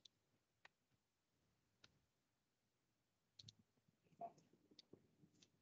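Near silence broken by about half a dozen faint, scattered clicks of a computer mouse.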